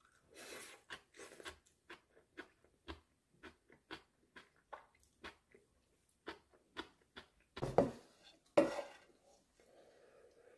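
Close-miked chewing of musaengchae, crisp raw radish strips crunching between the teeth in a quick, regular run of bites. Two louder, heavier knocks come about eight seconds in.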